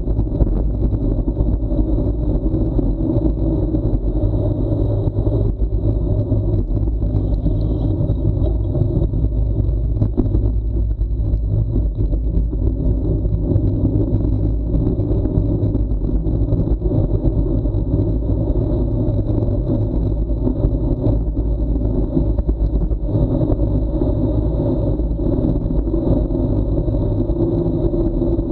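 Steady rumble of wind and road noise on a bicycle-mounted action camera's microphone, from riding fast on an asphalt road.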